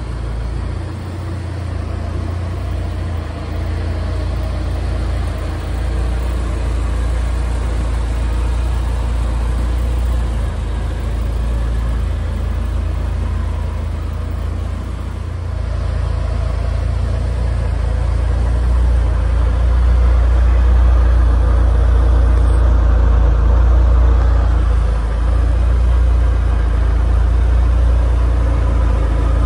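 The 2010 Lotus Exige 260S race car's engine idling steadily, a low, even sound that gets louder a little past halfway through.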